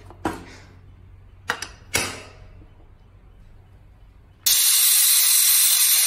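Sharp metal clinks as the lid and whistle weight are fitted onto an aluminium Prestige Popular pressure cooker. About four and a half seconds in, a sudden loud, steady hiss starts: the cooker's whistle blowing steam as it comes up to pressure.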